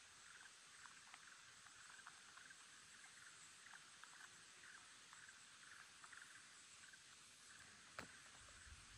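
Near silence: a faint outdoor background of small, repeated chirps, with one sharp click about eight seconds in.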